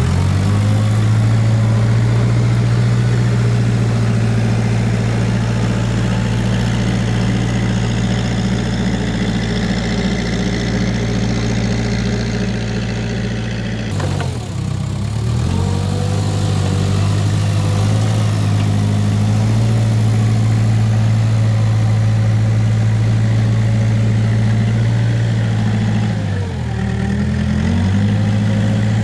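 Case 580K backhoe loader's diesel engine running steadily while working dirt. Its pitch sags and recovers twice, about halfway through and again near the end, as the engine is pulled down under load. There is a sharp click just before the first sag.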